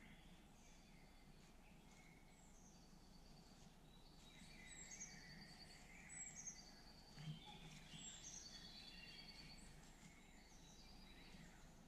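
Faint woodland songbirds singing: several repeated short whistled phrases and trills, busier from about four seconds in, over a low background hiss.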